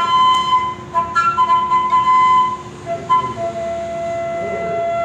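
A bamboo flute playing a slow phrase of a few held notes: a higher note sustained for about two seconds with a brief step up, then a long lower note to close.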